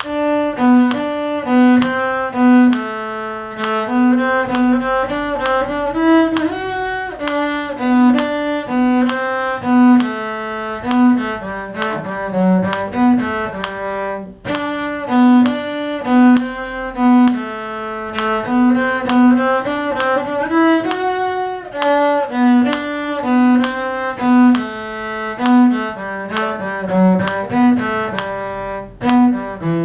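Bowed string instruments playing a tune as a run of short, distinct notes, with a brief break about 14 seconds in before the playing goes on.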